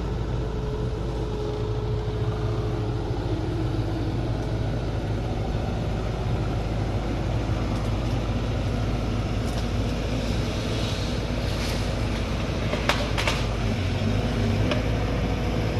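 Engine of tree-shear machinery running steadily, with a few short sharp cracks in the second half, the loudest about 13 seconds in.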